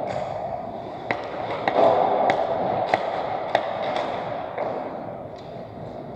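Echoing ice-hockey rink noise: skates on ice and a run of about six sharp clacks of hockey sticks and pucks, roughly one every half second, in the first part.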